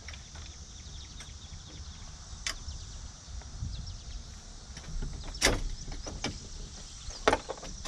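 Sharp metal clicks as a safety pin is worked into the hole of a tow-guard support tube: three clicks, about two and a half, five and a half and seven seconds in, the middle one the loudest.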